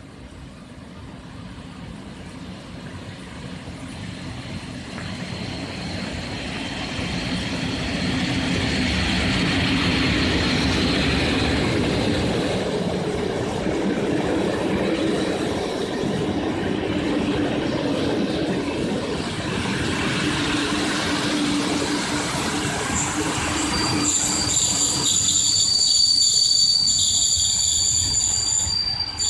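Intercity passenger train pulling into a station, growing louder as it approaches and then rolling past with a steady rumble of wheels on rail. In the last few seconds high, steady squealing tones set in as the train slows to a stop.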